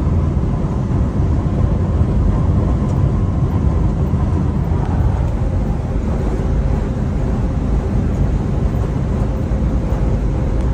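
Steady low drone inside a semi-truck's cab at highway speed: engine and tyre noise on the road.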